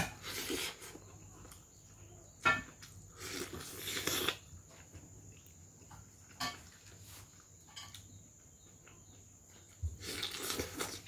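Mouth sounds of eating rice and pork by hand: bites, lip smacks and chewing in short bursts a few seconds apart. The loudest come as food goes into the mouth at the start and again near the end.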